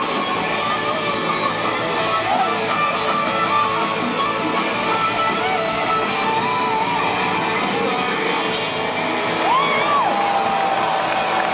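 Live rock band playing in a large arena, heard from the crowd, with an electric guitar lead on top. Near the end the guitar bends up and settles into a long held note.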